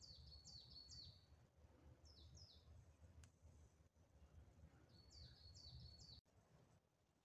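Faint song of a small bird: three short phrases of quick, high, falling notes, over a faint low rumble of wind. The sound drops out completely about a second before the end.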